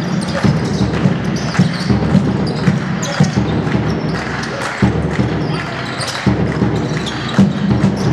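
Basketball game sound in a sports hall: the ball bouncing on the court as it is dribbled, with short sharp knocks throughout, over players' and spectators' voices.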